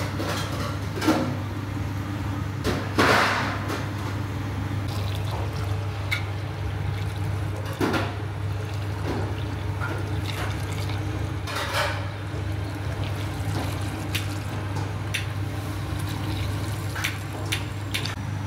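Water running from a hose into stone dizi pots, filling them one after another for abgoosht, over a steady low hum. A few short clatters come through, the loudest about three seconds in.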